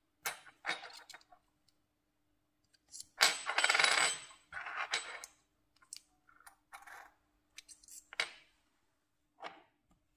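Metal hot-air gun nozzles clinking and clattering against each other and the table top as they are picked up, set down and handled; a series of short metallic knocks with some ringing, the loudest clatter about three seconds in.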